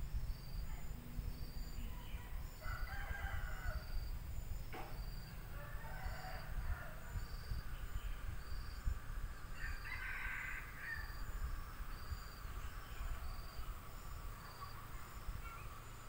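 Roosters crowing several times at a distance, over a steady high insect chirp that repeats about once a second, typical of crickets, and a low rumble.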